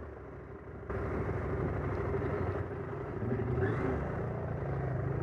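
Off-road adventure motorcycle engine running at low speed over rough ground, the revs rising and falling, louder from about a second in.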